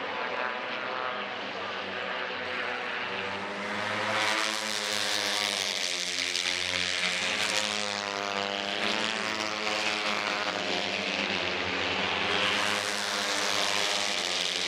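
J-GP3 class racing motorcycles running at high revs as packs of bikes race past, the engine pitch rising and falling with gear changes and passing.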